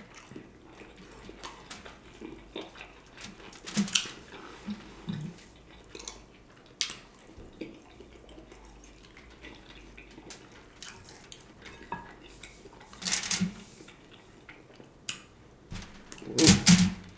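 Close-miked eating sounds of a person biting and chewing smoked turkey leg, with wet mouth sounds and occasional knocks of the food or hands against the bowl. They come in scattered bursts, the loudest about 4 s in, around 13 s and near the end.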